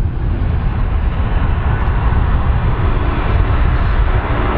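Airplane engines running, a loud steady rumble that brightens slightly toward the end.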